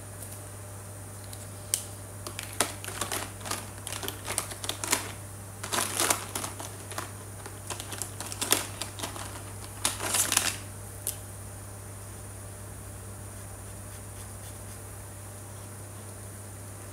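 Plastic marker pens clicking and clattering against each other as a hand sorts through them for most of the first eleven seconds, then stops. A steady low electrical hum runs underneath throughout.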